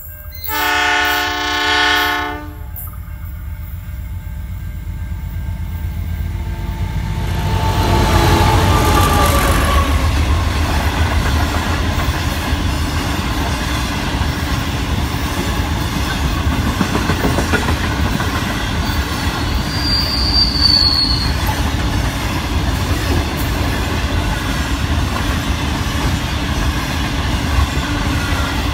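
A diesel freight train's horn sounds two chord blasts as it approaches. About seven seconds in the locomotives pass close by, followed by the ore wagons rolling past in a steady loud rumble and clatter of wheels on rail. A short high wheel squeal comes about twenty seconds in.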